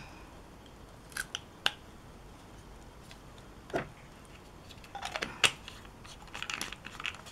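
Light clicks and taps of small plastic lab items being handled: a plastic syringe, a test tube and small plastic reagent bottles. A few isolated clicks, then more of them in quick clusters in the second half.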